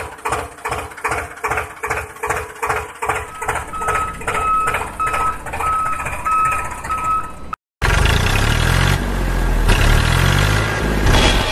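Tractor engine sound chugging evenly about three beats a second. Reversing beeps join about halfway. After a sudden cut near the end, a louder, steadier engine sound takes over.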